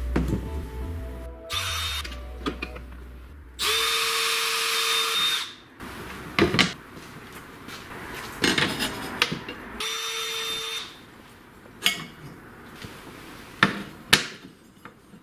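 A power drill running in two short bursts of steady whine, with sharp knocks and clicks of work between them. Background music plays underneath.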